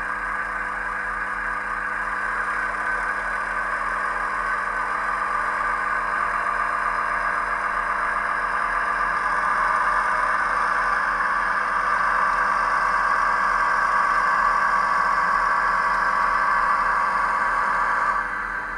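Hobbytrain N-scale Kruckenberg SVT 137 model railcar running, its onboard sound decoder playing a steady diesel engine sound through its small speaker. The sound grows louder over the first half and drops off suddenly just before the end.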